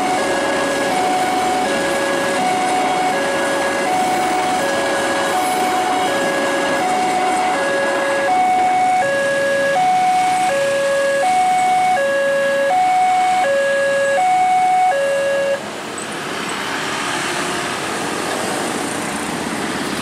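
Railway level-crossing warning bell sounding a repeating high-low two-tone, over the rumble of a freight train's container wagons passing. The alarm cuts off about three-quarters of the way through, leaving road traffic moving off.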